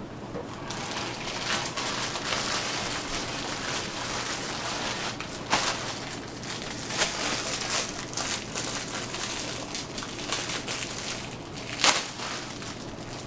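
Plastic bread bag crinkling and rustling as English muffins are taken out of their package, with a few sharper crackles of the plastic around the middle and near the end.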